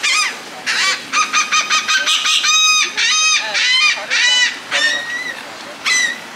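Gulls calling: a quick, loud series of repeated harsh cries, then a few single calls near the end.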